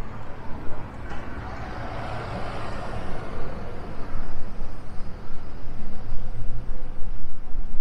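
Street traffic: a passing vehicle's noise swells over a couple of seconds and fades, over a steady low rumble of road noise.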